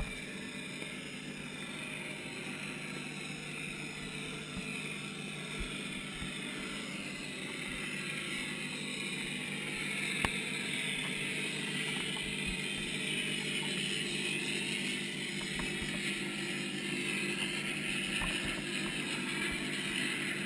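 Steady underwater hum and hiss picked up by a submerged camera, with a sharp click right at the start and a fainter one about ten seconds in.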